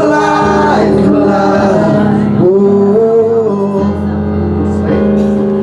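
Music: voices singing over an instrumental backing with sustained bass notes that change every second or so.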